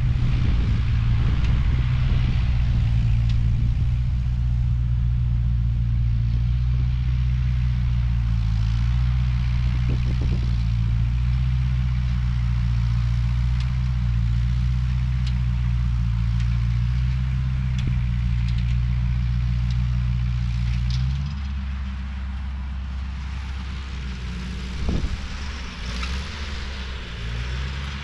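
Ford 8N tractor's four-cylinder engine running steadily, then its note drops and quietens about three-quarters of the way through, with a single knock a few seconds later.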